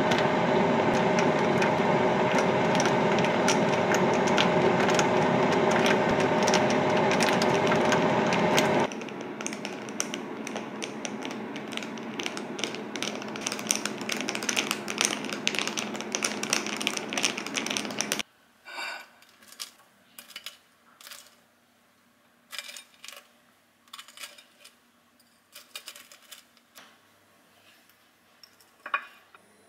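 A loud steady whirring for about the first nine seconds. It gives way to the quick, continuous clinking of a metal straw stirring ice cubes in a glass of iced matcha latte, which stops about halfway through. Then come scattered light clinks and taps.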